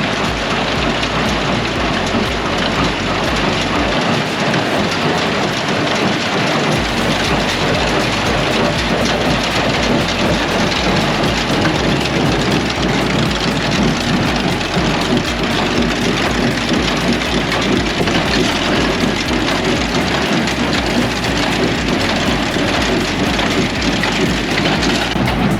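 Tractor and hay baler running at work, a loud dense steady noise with no pauses.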